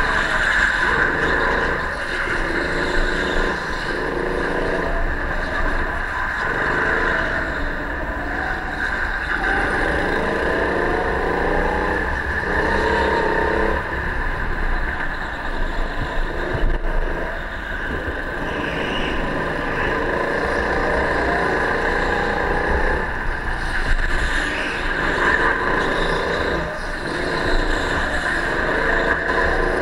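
Go-kart engine heard from onboard while driving, repeatedly rising in pitch as it accelerates and falling back as the throttle lifts, over a steady high-pitched hum.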